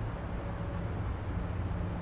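Wind buffeting the microphone: a steady, uneven low rumble, with a faint thin steady whine above it.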